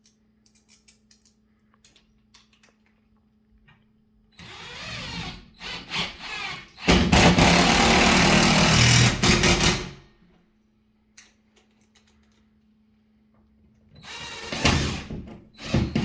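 Impact driver driving lag screws through a TV wall-mount bracket into a wooden wall stud. A few small clicks come first, then a short lighter run, then a loud run of about three seconds, and another short run near the end.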